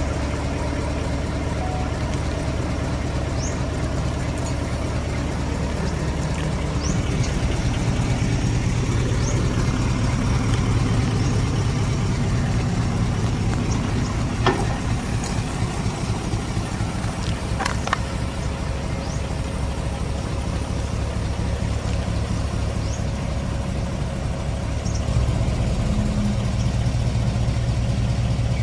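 Hino Profia boom truck's diesel engine running steadily, getting louder about a quarter of the way in and again near the end. A couple of sharp clicks sound around the middle.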